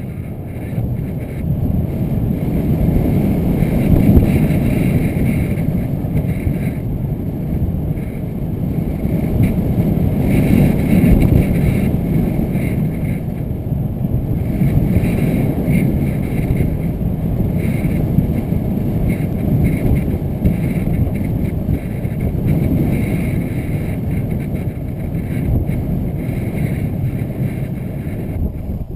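Wind rushing over the microphone of a GoPro Hero 2 chase camera in flight: a loud, low buffeting that swells and eases every few seconds.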